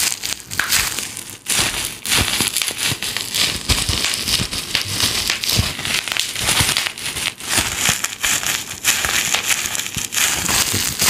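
Crumpled black plastic crinkling and crackling in the hands right beside a Soundtech 2.1 USB condenser microphone in cardioid mode, moved around the mic to test how it picks up sound from different sides. The crackling is continuous, with brief lulls at about a second and a half and near nine seconds.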